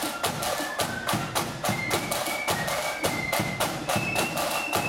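Marching flute band playing: side drums beat a steady march rhythm of several strokes a second, with a high flute melody held over it.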